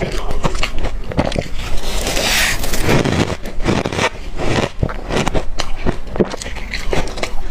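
Crushed ice from a deep freezer being chewed close up: a steady run of crunching and cracking bites, with squeaky, crunchy frozen ice breaking between the teeth.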